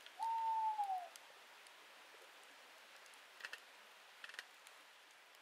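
An owl hooting once: one held note that drops in pitch at the end. A wood campfire crackles in a few faint ticks around the middle of the clip.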